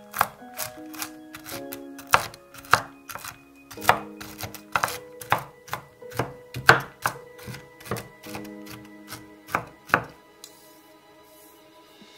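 Knife chopping walnuts, sharp irregular chops about two to three a second that stop about ten seconds in. Soft background music plays underneath.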